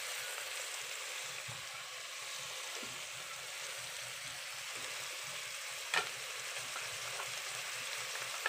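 Fresh green mussels sizzling in a pot on sautéed garlic, onion and tomato: a steady frying hiss, with one sharp click about six seconds in.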